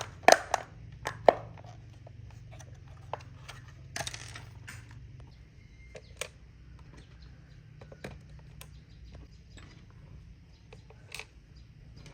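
A series of sharp knocks and clicks from hard objects being handled, several loud ones in the first second and a half, then lighter scattered clicks, with a short hiss about four seconds in, over a faint low hum.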